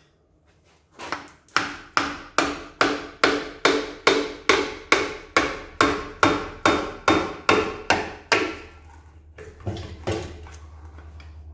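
Hammer blows on the cast-iron front end of a Dodge 5.9 Magnum V8: a quick run of about eighteen sharp, ringing metal-on-metal strikes, two to three a second, knocking a stuck part loose. A pause follows, then two more blows, while a low steady hum sets in.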